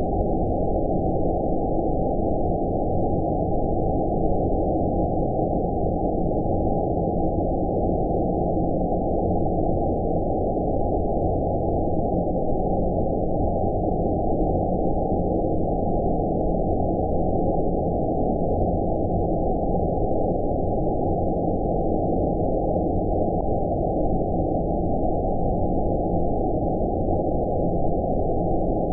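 Steady, muffled noise of an 'outer space' sleep-sound track: even hiss with everything above about 900 Hz cut away, leaving only the low, deep part, unchanging throughout.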